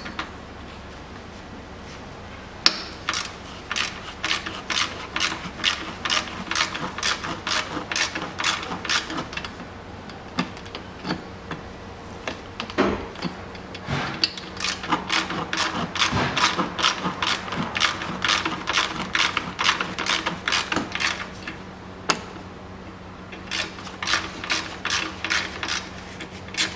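Socket ratchet clicking in three runs, with short pauses between, as rusted bumper screws soaked in WD-40 are backed out.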